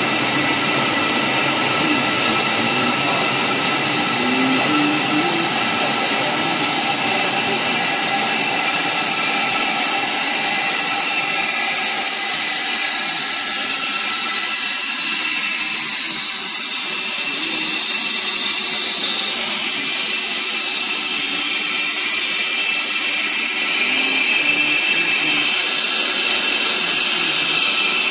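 Plastic extrusion line for polypropylene mandrels running: a steady machine noise with several high, level whines that holds unchanged throughout.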